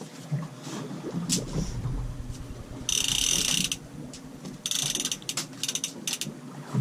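A fishing reel's clicker ratcheting: a dense buzz of about a second some three seconds in, a shorter one about a second later, then a few separate clicks.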